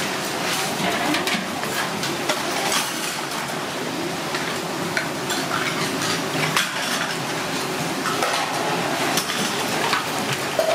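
Perforated metal skimmer knocking and scraping against an aluminium pot as a large triton's trumpet conch shell is lifted out of its water, with water splashing and pouring off. Near the end, tap water runs into a metal basin.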